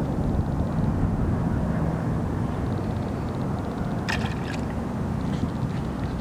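Steady low rumble of wind on the microphone, with a short splash about four seconds in as the needlefish lure is worked through the water surface.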